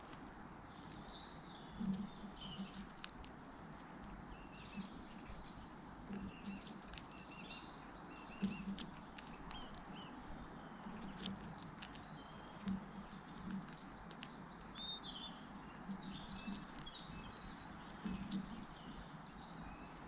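Small birds chirping at many scattered moments. Under them, dull knocks and sharp clicks every second or two as a rose-ringed parakeet pecks at a seed feeder's port and husks the seeds.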